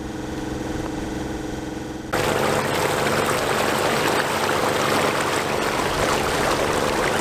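Sailboat's engine running steadily under way; about two seconds in, the loud rush of churning wake water takes over, with the engine hum still under it.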